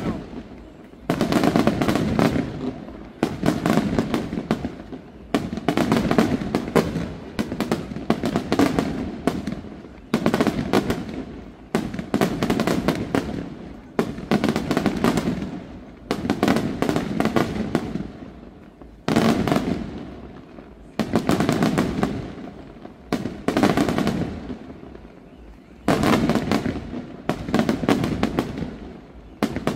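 Aerial firework shells bursting in steady succession, a loud report about every two seconds with crackling trailing after each one.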